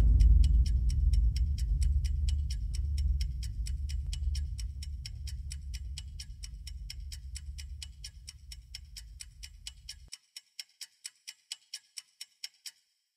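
End-card soundtrack: steady clock-like ticking, roughly three ticks a second, over a low drone that fades away. The drone cuts off about ten seconds in, and the ticking stops shortly before the end.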